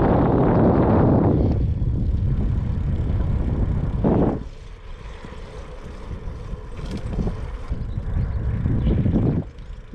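Wind rumbling on a GoPro action camera's microphone while riding a road bike on asphalt. It is loudest in the first second and a half, surges briefly about four seconds in, eases off, then swells again before dropping away near the end.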